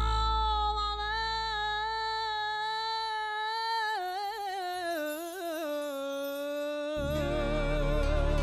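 A woman singing live into a microphone: a long held note, then a wavering, ornamented descent to a lower held note. Below her the bass and percussion drop away and then come back in about seven seconds in.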